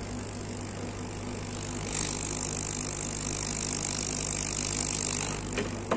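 Hot-air rework station blowing a steady hiss over a low hum while it heats the solder to fit a surface-mount resistor. A short click near the end.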